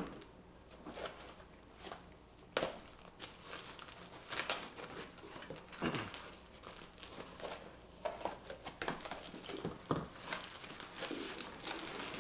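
Plastic and foam packing wrap being cut with scissors and torn and pulled apart by hand: irregular crinkling and rustling with sharp tearing sounds.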